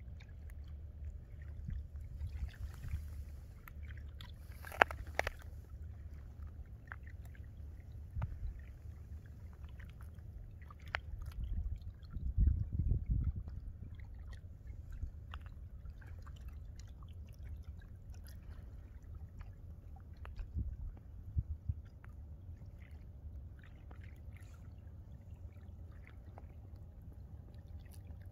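Small waves lapping and trickling at a lake shore in many little splashes and clicks, with wind rumbling on the microphone that gusts strongest about halfway through.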